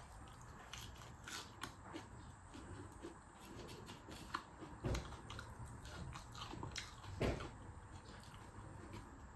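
Quiet eating sounds: chewing, fingers mixing rice and curry on a plate, and small clicks and rustles, with two louder thumps about five and seven seconds in.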